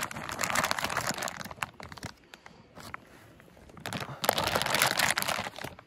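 Plastic bag of boilies rustling and crinkling as the bait is handled, in two stretches with a quiet pause of about two seconds in the middle.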